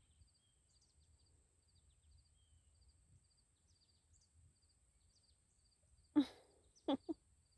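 Quiet outdoor background with faint, short high chirps repeating every fraction of a second. About six seconds in, a sudden short vocal sound, the loudest thing here, followed by two brief sharp ones.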